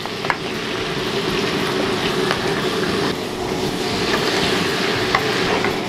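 Chicken and vegetables sizzling as they are stir-fried in a nonstick wok over a gas burner: a steady frying hiss with a few light taps of the wooden spatula against the pan.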